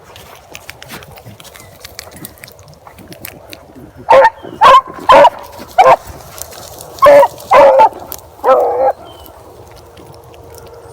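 Beagle hounds baying on a rabbit trail: a quiet start, then seven loud bawls in quick succession from about four seconds in, the last one drawn out.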